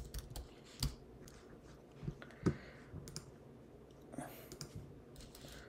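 Scattered single clicks from a computer mouse and keyboard, a few in all, the two loudest about a second and two and a half seconds in, over quiet room tone.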